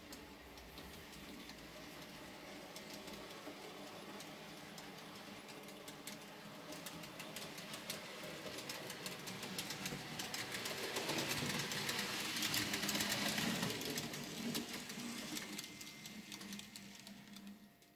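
N-scale model train running along the layout track: a small electric motor hum with rapid clicking of the wheels over rail joints, growing louder to its loudest about three quarters of the way in, then dying away near the end.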